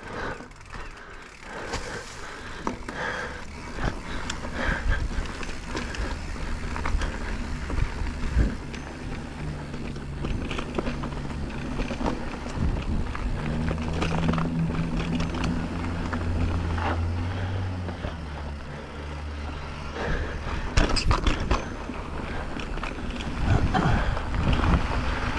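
Mountain bike descending a dirt singletrack: tyres rolling and skittering over dirt and stones, with the bike rattling and knocking over bumps. A low steady hum rises out of the noise through the middle and fades again.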